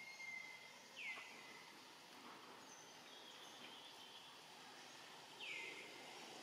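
High, thin animal calls, each sliding down in pitch and then held briefly. There are three: one at the start, one about a second in and one near the end, with fainter high tones between them over a quiet outdoor background.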